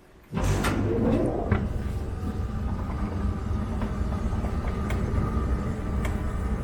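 Mitsubishi escalator running, a loud steady low rumble with scattered clicks that comes in abruptly about a third of a second in. A faint steady tone sits above the rumble in the later part.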